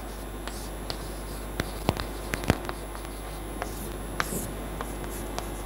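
Chalk writing on a blackboard: a string of irregular short taps and scratches as the strokes are made, over a steady low room hum.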